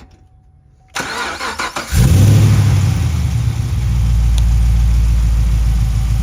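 A Chevy Camaro SS's 6.2-litre LS V8 cranks on the starter for about a second, catches about two seconds in and settles into a steady idle. This is the first start after valve cover gasket replacement, and the engine sounds nice and healthy.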